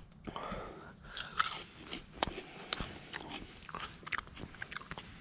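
A person biting into and chewing a crisp freeze-dried apple piece, with irregular crunching.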